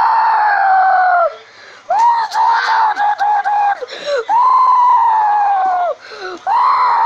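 Loud, high-pitched human screaming: a long held scream that sags slightly in pitch, then a run of short choppy cries about two seconds in, another long scream about four seconds in, and a third starting near the end.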